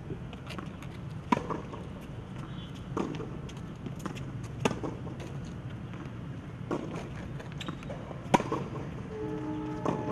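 Tennis rally on a hard court: sharp pops of racquets striking the ball every second and a half to two seconds, with softer ball bounces between them. Background music comes in near the end.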